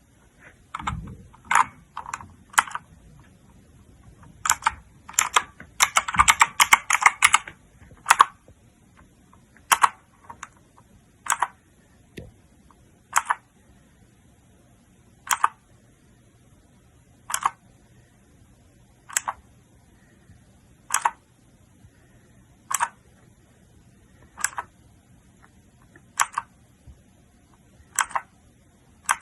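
Keychron K2 mechanical keyboard with clicky blue switches being pressed: a few keystrokes and a quick flurry of them in the first several seconds, then single sharp key clicks about every two seconds.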